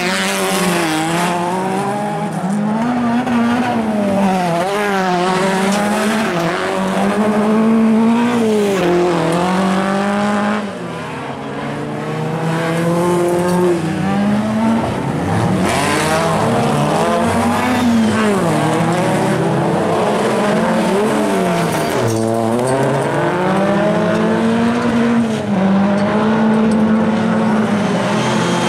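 Several small rallycross cars of up to 1600 cc racing together, their engines revving up and dropping again and again through gear changes and throttle lifts, with several engine notes overlapping.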